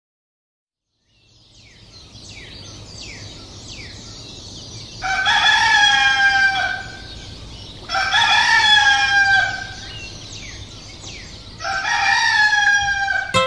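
Rooster crowing three times, each crow about a second and a half long, over small birds chirping. It starts after about a second of silence.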